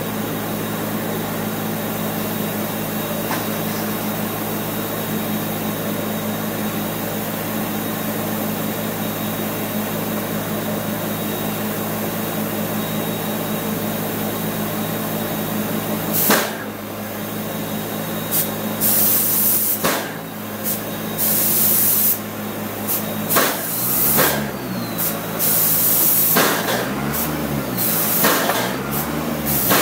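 A steady machine drone. From about halfway, a paint spray gun fires in repeated short hissing bursts as the trigger is pulled and released, with a slow low pulsing underneath near the end.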